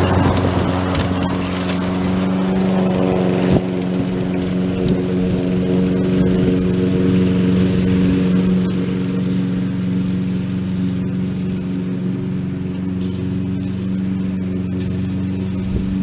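Petrol lawn mower engine running at a steady speed while cutting grass, with extra hiss in the first few seconds.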